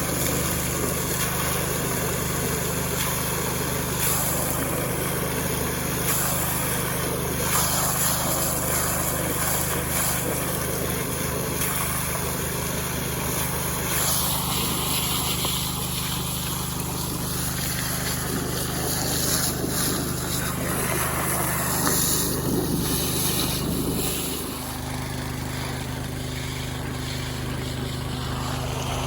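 Small Robin petrol engine running steadily. About 24 seconds in its note drops slightly and it runs a little quieter.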